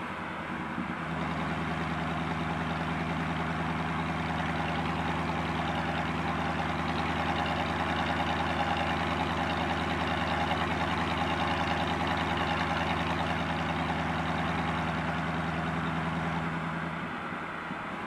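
Inside the cabin of a 1993 Chevrolet Corvette (C4), its V8 drones steadily at constant revs over tyre and wind noise as the car cruises. The engine drone drops away near the end.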